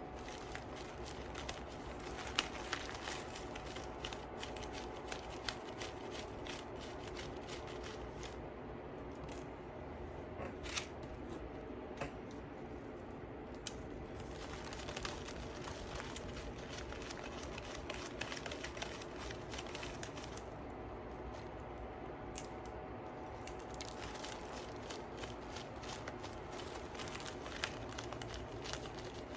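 Light scattered clicks and rustles of beads being handled and strung onto a beading needle and thread, over a steady faint room hum.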